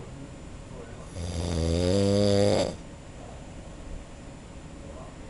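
A man snoring: one long, droning snore about a second in, lasting about a second and a half and rising in pitch at its end.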